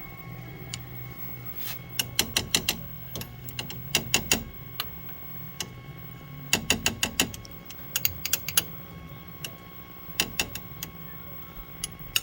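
Bursts of sharp clicks and scraping as a vacuum tube is rocked and reseated in its socket on a 1965 color television chassis, checking for a dirty socket contact. A steady low hum runs underneath.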